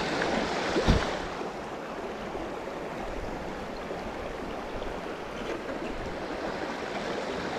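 River water rushing steadily, with a single short thump about a second in.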